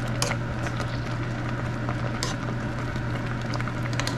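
Food cooking, crackling and sizzling, with a few sharp crackles over a steady low hum.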